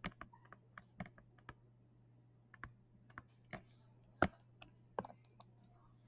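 Stylus tapping and clicking on a touchscreen while handwriting, in irregular light clicks, several a second at first and sparser later, the sharpest about four seconds in. A faint steady low hum lies underneath.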